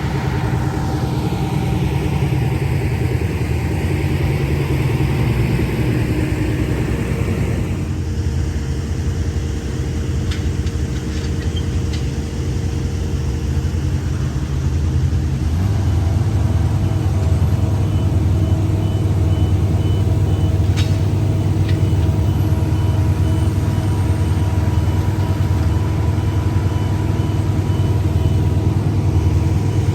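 Wood chipper's engine running steadily, with a harsher whirring of wood going through the chipper in the first several seconds. The engine note changes about halfway, and a high repeating beep joins it.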